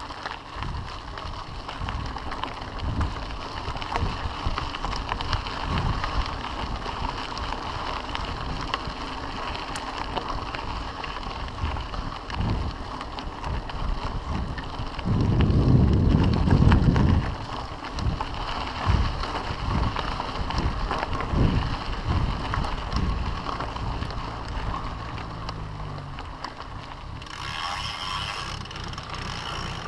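Mountain bike rolling over a gravel road, its tyres crunching and the frame rattling with many small knocks. Wind buffets the rider's camera microphone, with a louder rush of it about halfway through.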